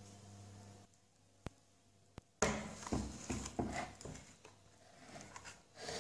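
A low steady hum that cuts off about a second in. Then two sharp clicks and, about two and a half seconds in, a burst of clattering knocks as the baked tart's metal tart pan is handled and set down on the table with a silicone oven mitt, followed by softer handling noise.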